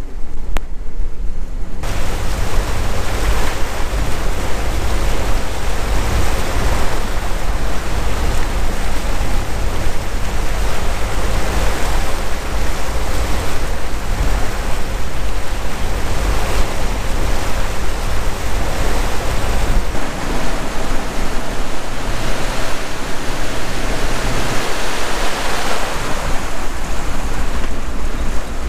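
Motorboat running under way: a steady rush of wind on the microphone and water noise off the hull over the low drone of the engine. The rushing noise fills out suddenly about two seconds in.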